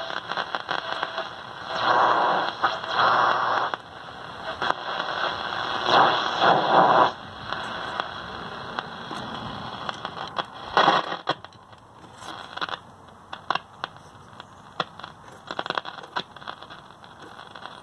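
Zenith Trans-Oceanic G500 tube radio being tuned between stations: steady hiss and static crackle, swelling louder about two and six seconds in, then quieter scattered crackling clicks.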